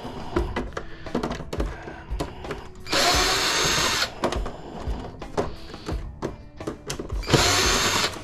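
Power drill backing out screws to take the door off a small plastic mini fridge, running in two short bursts, about three seconds in and near the end. Light clicks and knocks of the plastic parts being handled fill the gaps between.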